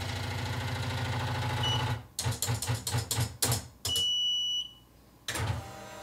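Triumph Adler Satellite 3 electronic typewriter carriage buzzing steadily as it steps along under the held space key. It stops about two seconds in, then gives a quick run of clicks and a short high beep: the machine refusing to space past the set right margin.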